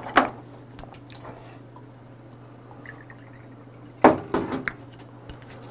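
Soju poured from a glass bottle into a small shot glass, a short burst of glugging and splashing about four seconds in. A light knock comes just after the start, and a steady low hum runs underneath.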